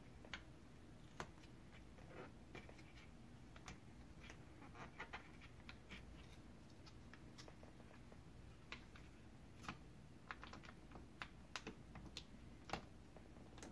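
Faint, irregular clicks and crinkles of a paper label and a foil Capri Sun pouch being handled, folded and pressed by hand.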